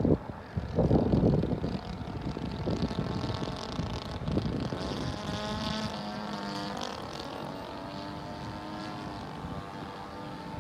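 Glow engine of a balsa sport model airplane buzzing overhead, its pitch sliding up and down as the plane passes about halfway through. Wind gusts on the microphone in the first two seconds.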